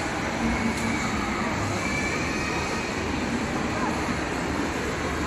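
Steady background noise of a busy indoor shopping mall, with a murmur of distant voices.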